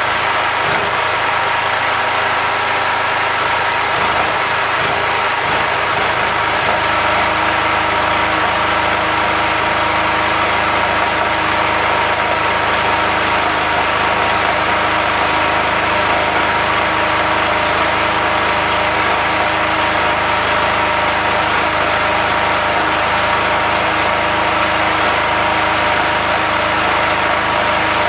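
Multipro GG 3900 portable generator's engine running steadily under the load of an inverter stick welder, with the crackle of the welding arc over it.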